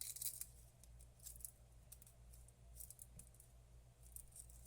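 Near silence with a steady low hum and scattered faint light clicks and ticks from handling thin wire and small hand tools at a workbench.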